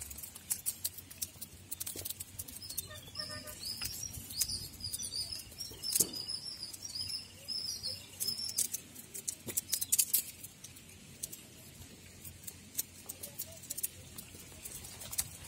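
A knife cutting pork skin and fat against a wooden log, making scattered sharp clicks and taps. A bird chirps a run of short repeated high calls from about three to seven seconds in.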